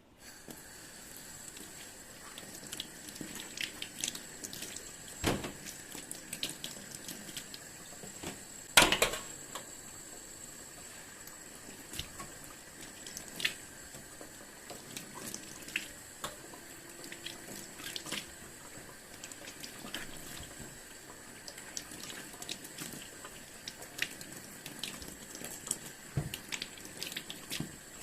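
Kitchen tap running steadily into a sink, with small clicks and knocks of things being handled in it; the loudest knock comes about nine seconds in.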